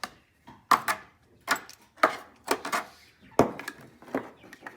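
Hyper Tough telescoping magnetic pickup tool knocking and tapping against a table, about two irregular knocks a second, as it is struck to shake off a screw that the magnet won't release.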